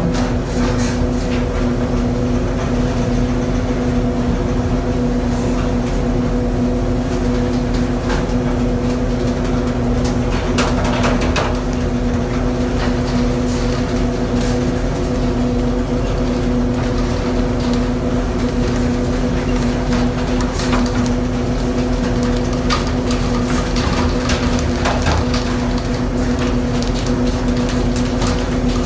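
Steady drone of a fishing ship's engine and machinery, a constant hum at a fixed pitch, with scattered knocks and clatters on deck.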